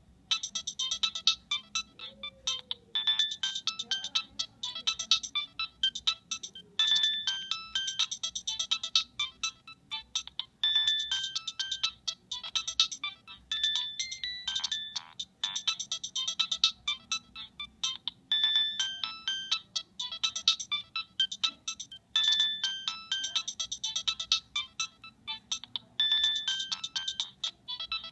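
Nokia 3586 mobile phone playing one of its built-in ringtones: a high-pitched electronic melody of short notes, its phrase looping about every four seconds.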